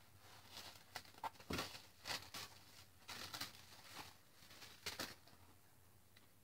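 Faint rustling and soft taps of paper and card being handled, in short scattered bursts that tail off near the end.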